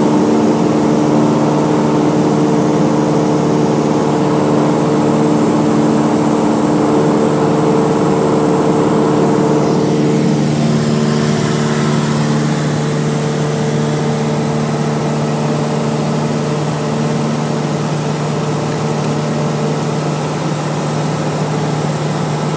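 Cessna light aircraft's piston engine and propeller droning steadily in flight. About ten seconds in, some of the higher notes drop out and the drone eases slightly.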